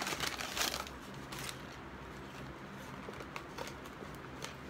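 Brown paper takeout bag rustling and crinkling as it is shaken and handled, loudest in the first second and a half, followed by a few light taps and clicks.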